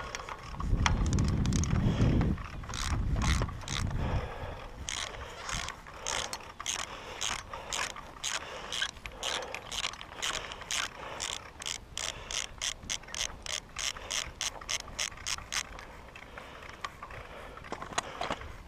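Hand ratchet wrench working the bolts of an earth-wire suspension clamp on a high-voltage pylon, loosening the clamp: a long run of rapid, even ratchet clicks, about three or four a second, that stops near the end. A low rumble comes in the first few seconds.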